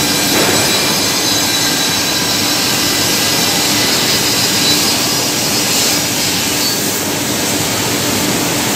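E-Chan ETC-86S double-head cutting and milling machine running: a loud, steady whirring hiss with a few faint steady tones in it.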